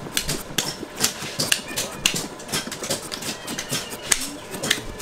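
A knife shaving the husk off a young coconut in quick, uneven strokes, a sharp scrape or click at each stroke, about four a second.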